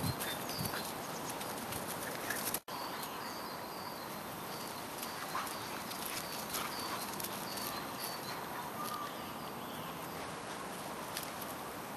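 Stabyhoun puppies and their mother moving about on grass: steady outdoor rustle with scattered light clicks and short faint high chirps about once a second. The sound cuts out for an instant about three seconds in.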